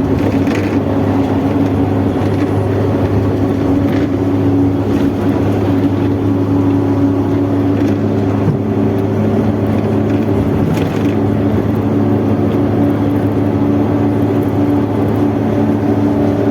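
Mercedes-Benz OF-1721 bus under way, its diesel engine and drivetrain giving a loud, steady drone. The title singles out the driveshaft (cardan shaft) as rumbling loudly.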